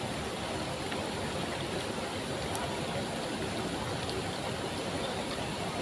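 Steady rushing of water from a waterfall and its stream.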